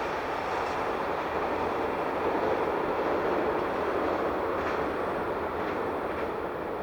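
KiHa 261 series diesel limited express train running by on the rails, a steady rushing rumble that eases off near the end.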